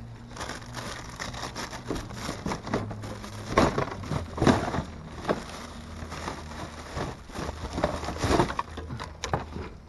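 Hands rummaging through packed trash in a dumpster: plastic bags rustling and crinkling while hard plastic and metal items knock and scrape, with a few louder knocks, the loudest about three and a half, four and a half and eight seconds in.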